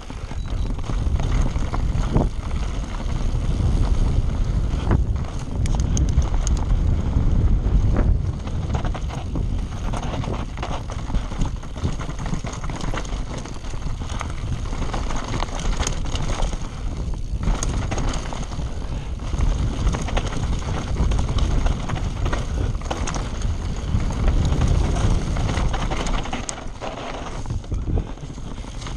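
Scott Spark full-suspension mountain bike ridden fast down a rocky singletrack: wind buffeting the camera microphone over the rumble of the tyres, with frequent clatter and knocks as the bike hits stones.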